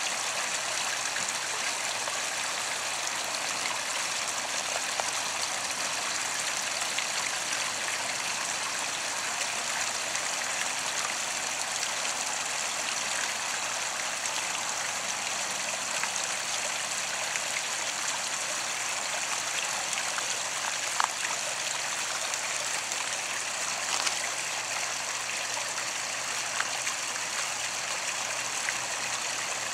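Small garden waterfall spilling over stacked stone ledges into a pond, with a bubbling fountain stone: a steady splashing trickle of water. A few brief clicks stand out over it about two-thirds of the way through.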